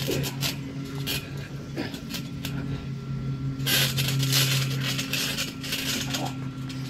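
Two people wrestling on a trampoline: short scuffs and thumps of feet and bodies on the mat, with a louder scuffle about four seconds in, over a steady low hum.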